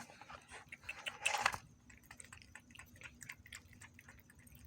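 A cat chewing food close by: a run of small, quick crunching clicks, with a louder rustling burst about a second in.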